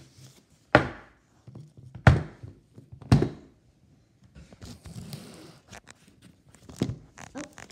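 Kindi Kids plastic dolls thudding onto a table as they are set down and topple over: three loud knocks about a second apart, then softer handling rustle and a lighter knock near the end.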